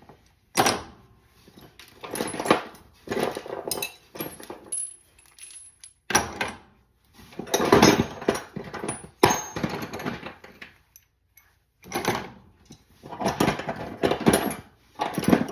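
Metal hand tools clinking and rattling as they are rummaged out of a tool bag and set down, in repeated bursts with short pauses between.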